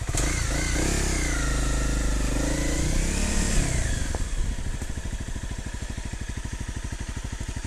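Off-road motorcycle engine: the revs rise and fall for about four seconds as it rides, then drop to a steady idle with an even low putter.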